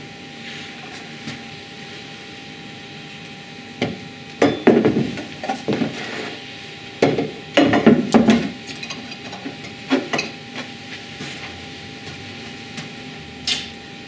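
Metal reflector plates and their mounts being set down and slid into place on a wooden baseboard: scattered knocks and scrapes, in clusters about four seconds in, around seven to eight seconds, at ten seconds and near the end.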